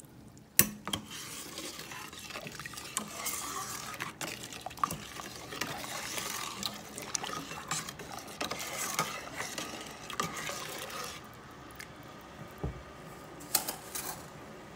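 A spoon stirring sugar into hot mango juice in a cooking pot, scraping and clicking against the pot with the liquid swishing. A sharp knock comes about half a second in, and the stirring goes quieter for the last few seconds with a few light clicks.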